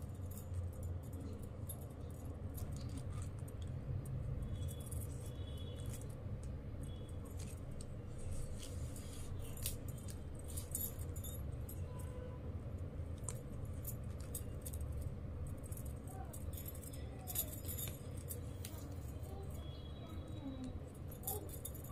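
Light clicking and jingling as plastic wire strands are threaded and pulled through a woven bag and metal bangles on the wrist knock together, over a steady low hum.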